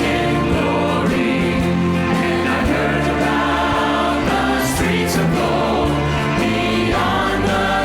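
Church worship music: a band playing while a group of voices sings together, with long held notes and a steady level.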